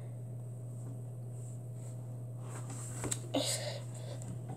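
Quiet room tone with a steady low hum, and a faint, brief rustle about three seconds in.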